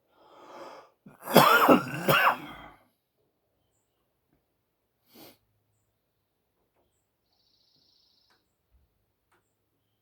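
A man breathes out and then coughs hard twice, a harsh voiced hacking, after holding in a hit of cannabis vapour from a vape pen. A short breath follows a few seconds later.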